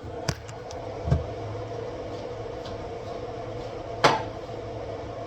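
Kitchen handling noises: a couple of light clicks, a dull thud about a second in and a sharp knock about four seconds in, like dishes or a cupboard being moved. Under them runs a steady hum from a kitchen appliance or fan.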